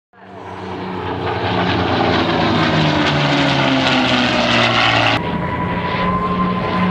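Spitfire Mk IX and P-51D Mustang flying past together, their Rolls-Royce Merlin V12 piston engines droning steadily. The drone swells up over the first second and its pitch slides down as the planes pass. About five seconds in the sound changes suddenly to a duller drone with a thin steady whine.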